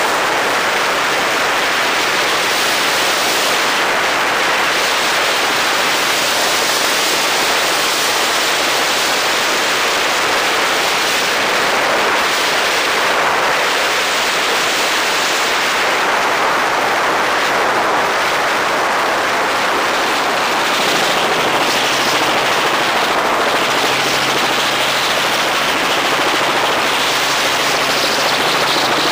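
Robinson R44 Raven II helicopter in fast, low flight, heard from outside the cabin: a loud, steady rush of wind and rotor noise, with a faint low hum coming in about two-thirds of the way through.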